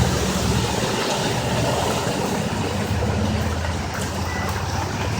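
A vehicle engine running low and steady as it drives through floodwater on the street, over a steady rushing wash of noise. The engine drone fades about a second in and swells again a few seconds later.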